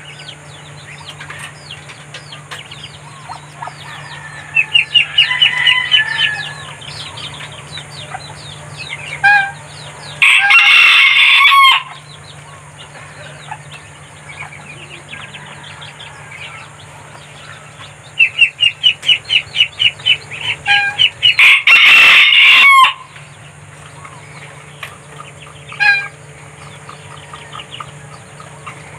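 Rooster crowing twice, about ten seconds in and again about twenty-two seconds in, each crow loud and about a second and a half long, falling away at the end. Between the crows come quick runs of short, rapid clucks.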